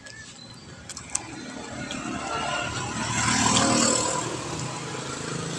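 A car drives up, its engine and tyre noise growing louder to a peak about three and a half seconds in, then easing to a steady lower level as it comes in at low speed.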